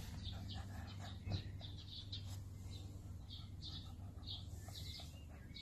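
A small bird chirping repeatedly, short high notes about two or three a second, over a low steady hum.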